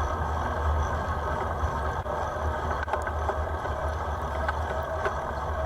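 Steady low wind rumble on the microphone of a camera riding along on a moving bicycle, mixed with road noise and a few faint ticks.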